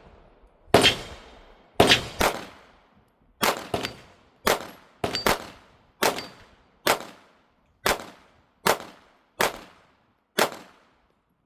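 Compact Smith & Wesson M&P Shield Plus pistol with a compensator fired in a string of about a dozen shots, some in quick pairs early on, then at a steady pace of about one a second. Each shot is a sharp crack with a ringing tail, and the firing stops shortly before the end.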